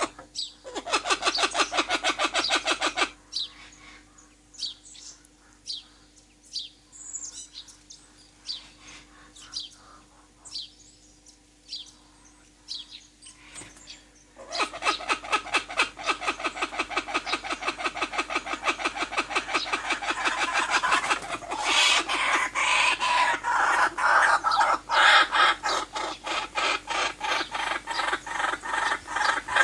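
Birds calling: a loud, rapid chattering trill of many notes a second at first, then a quieter stretch of single short notes falling in pitch about once a second. About halfway through, the rapid chattering returns and carries on, thickening into a dense chorus.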